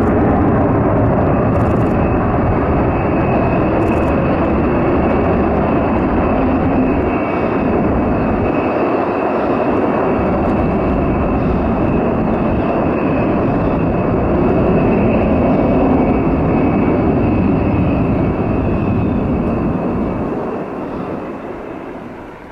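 Rockwell B-1B Lancer's four General Electric F101 turbofans in full afterburner on the takeoff climb-out: a loud, steady roar with a high whine running through it. The roar fades over the last few seconds.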